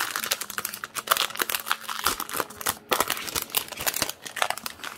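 Thin clear plastic packaging crinkling and rustling as it is unwrapped by hand, in quick irregular crackles.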